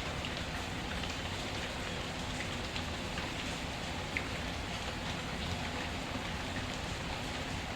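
Steady rain with scattered small pops and crackles of a wood fire, one sharper pop about four seconds in.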